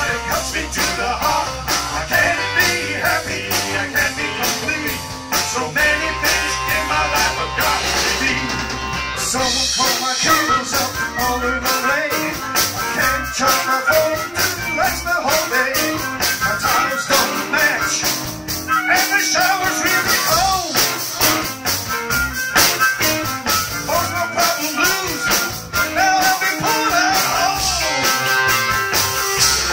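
Live blues band playing: electric guitar, bass guitar and drum kit keeping a steady beat, with a harmonica playing over them.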